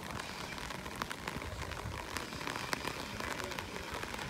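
Steady rain, with many sharp, irregular drop ticks close to the microphone.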